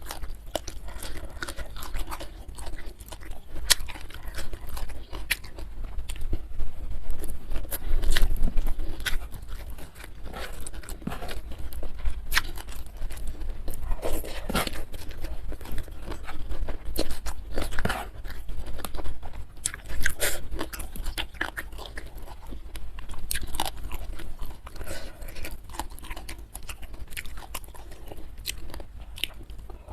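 A person chewing and crunching food, with many irregular crisp crackles from each bite.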